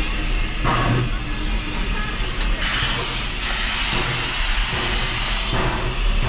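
Narrow-gauge steam locomotive letting off steam: a loud hiss starts about two and a half seconds in and lasts about three seconds, over a low rumble.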